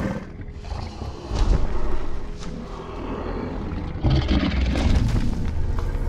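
Movie soundtrack: a deep, rumbling mix of sound effects and score, swelling about a second and a half in and again at about four seconds.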